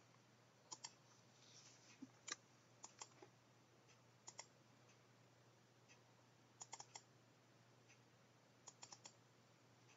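Faint clicks of a computer mouse and keyboard, coming singly, in quick pairs and in small clusters every second or two, with near silence between them.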